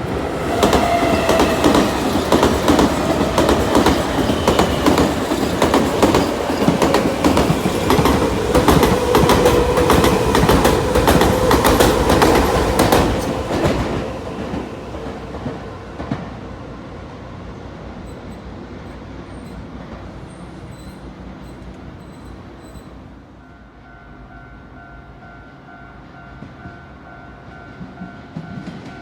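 Electric commuter train passing close by, its wheels clattering over the rail joints with a faint whine. It is loud for about the first fourteen seconds, then fades away. A steady high tone sets in near the end.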